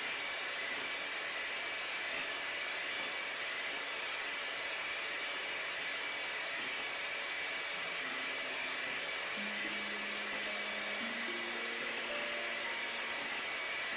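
Electric hand mixer running steadily at medium speed, its beaters whisking whole eggs and sugar into a pale foam in a glass bowl. Soft background music notes come in about halfway through.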